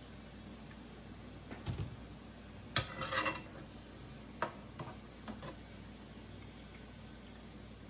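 Utensil knocking and scraping against the frying pot: a few light clanks near two seconds, a scraping clatter around three seconds and more knocks near four and a half and five seconds. Beneath them is a steady faint sizzle of sweet potato donuts deep-frying in oil.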